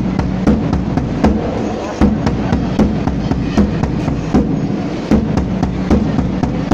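Large double-headed bass drum beaten with sticks in a steady rhythm, about three deep strikes a second.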